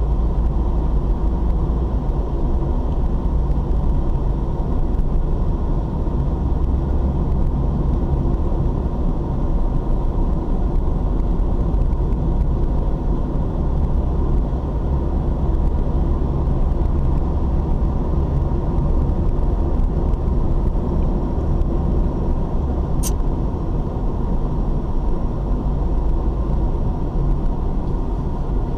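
Steady low rumble of a car driving at road speed, engine and tyre noise heard from inside the cabin. One brief sharp click comes about three-quarters of the way through.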